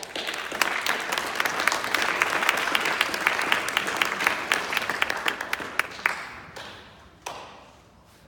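Audience applauding in a large hall: a dense patter of many hands clapping that starts at once, holds for about six seconds and dies away, with one short burst of noise near the end.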